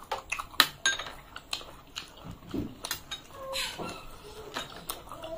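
A metal spoon clinking against a glass bowl of pea ghugni in a series of sharp clinks, the loudest about half a second in, with close-miked chewing and mouth sounds of eating.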